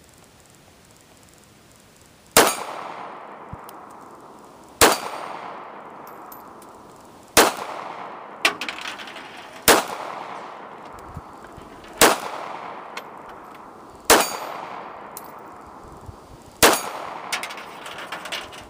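Ruger LCP .380 pocket pistol fired seven times in slow single shots about two and a half seconds apart, each crack followed by a fading echo. A few fainter ticks fall between some of the shots.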